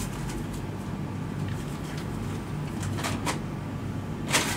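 Sheets of paper being handled and rustled, in a few short bursts with a louder rustle near the end, over a steady low hum.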